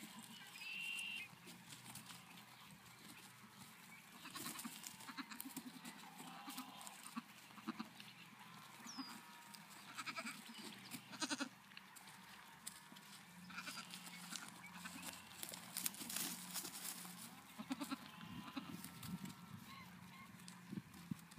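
Nigerian Dwarf goat kids bleating now and then in short, high calls, over a steady rustle and clicking of small hooves moving about on a hay bale.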